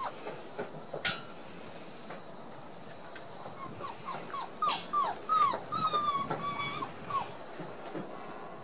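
A sharp click about a second in, then a one-month-old Border Collie puppy whimpering: a quick run of short, falling whines followed by one longer held whine.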